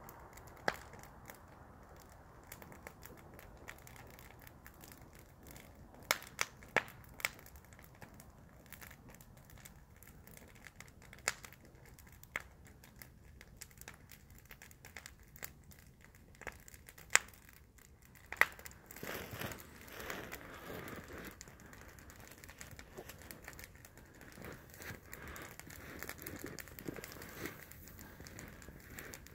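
Wood campfire crackling, with scattered sharp pops through the first two-thirds and a busier, denser crackle from about two-thirds of the way in.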